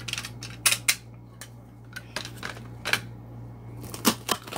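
Hands handling a taped cardboard shipping box: a few sharp taps and knocks on the cardboard with light rustling of tape and plastic wrap, over a low steady hum.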